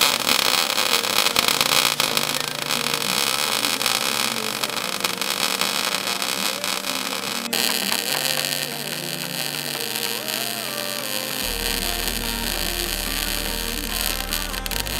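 MIG welder arc crackling and sizzling steadily as a bead is run along a stress crack in a steel mower deck, easing a little about halfway through.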